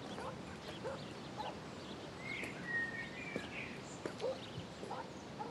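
Birds chirping against a quiet outdoor background, with a few faint footsteps.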